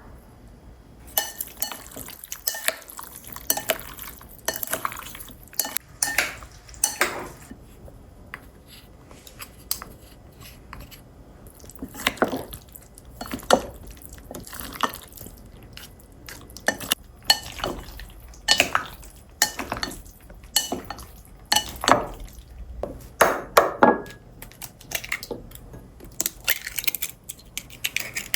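Kitchen utensils clinking and knocking against dishes and cookware, with irregular clatter throughout, while chicken fried rice is prepared.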